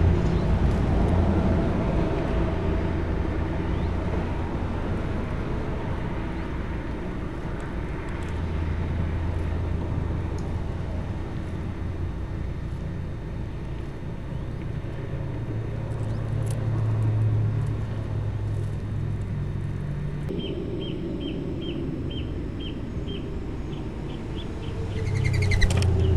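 Steady low outdoor rumble. In the last few seconds comes a run of faint, evenly spaced high chirps from a small bird, about two a second.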